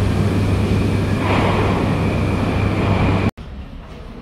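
Moscow metro train running: a steady, loud rumble with a low hum and a faint high whine. It cuts off abruptly about three seconds in, leaving a quieter rumble.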